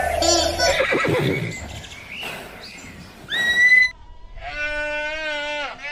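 A horse whinnying, with a falling call early and a shrill high call about halfway through. Near the end a cat meows with one drawn-out, wavering meow.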